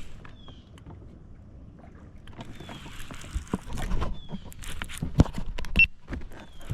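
Fishing tackle being handled in a boat: a run of clicks and knocks with a rustling hiss that starts about two seconds in and is busiest near the end.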